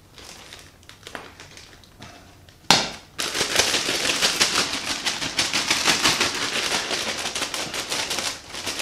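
Clear plastic food bag holding luncheon-meat cubes and soy sauce shaken hard, a dense crackling rustle of plastic with the cubes tumbling inside, starting about three seconds in. Just before it, a single sharp knock.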